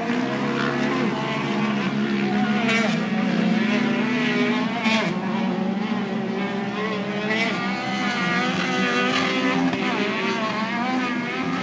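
Several non-turbo off-road race vehicle engines running at the same time, their pitches rising and falling as they rev on and off the throttle, with a few brief louder rushes of noise.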